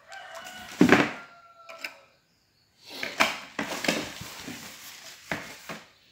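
A stand mixer's stainless-steel bowl and attachments being handled: a loud metallic knock about a second in with a brief ring, then rustling handling noise with several small clicks.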